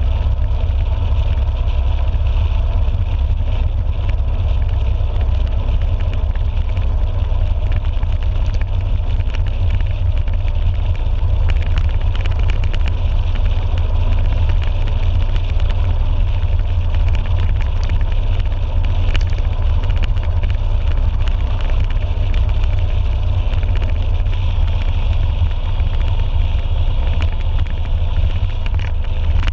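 Motorcycle riding at steady cruising speed, heard from a camera mounted on the bike: a constant low wind rumble on the microphone with the engine running underneath.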